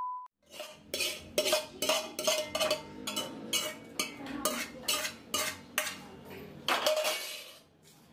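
A spoon scraping cooked noodles out of a non-stick frying pan onto a steel plate: a quick run of scrapes and clinks, about two a second, that stops shortly before the end.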